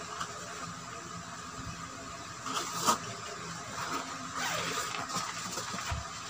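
Handling noise of a padded nylon ukulele gig bag being lifted and turned over in a cardboard box: soft rustling, with a sharp click about three seconds in.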